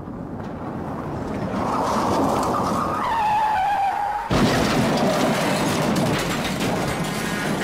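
Car tyres squealing in a skid: a wavering squeal that drops in pitch, then a sudden loud rushing noise from about four seconds in that cuts off abruptly near the end.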